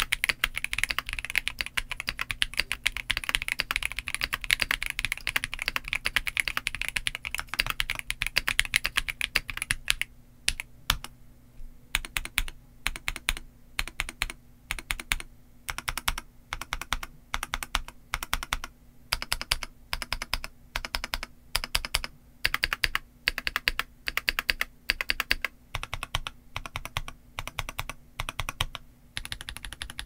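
Stock Keychron V3 Max mechanical keyboard with Gateron Jupiter Banana tactile switches and double-shot OSA-profile keycaps. It is typed on fast and continuously for about ten seconds, then single keys are pressed one at a time, each keystroke separate, roughly one every half second to second.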